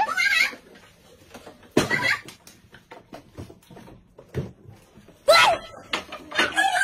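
Young children's short high-pitched squeals and cries, with a few knocks and bumps on wooden furniture as a toddler climbs onto a cabinet and a stool lid is handled.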